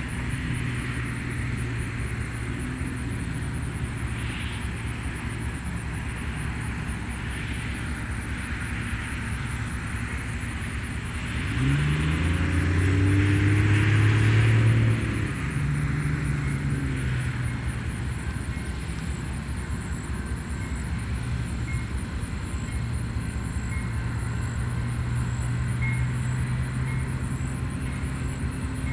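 Distant freight train led by two GE AC4400CW diesel-electric locomotives, their V16 diesel engines making a steady low hum. About twelve seconds in the engine sound rises in pitch and grows louder for a few seconds before settling back.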